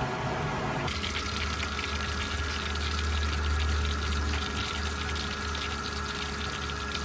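Spa equipment running: a steady low hum from the circulation pump with a rushing hiss of water, the pool heater leaking strongly. About a second in, the hiss gets louder and brighter.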